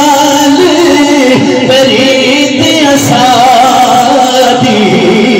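A man singing Sufi poetry in long, held notes with a wavering pitch, amplified over a microphone.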